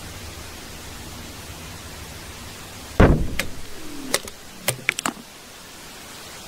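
Recording made 25 m underground: steady hiss and low hum, then about three seconds in one heavy thud with a low rumble, followed by several sharp knocks over the next two seconds. The recordists present it as the sound of underground blasting work.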